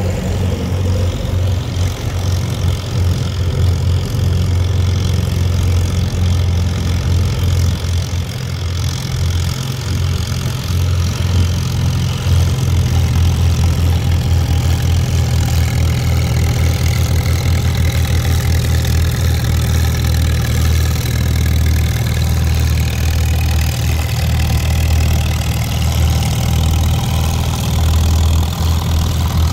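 McCormick W-9 tractor's engine running loud and steady under load as it pulls the weight sled, getting a little louder about twelve seconds in.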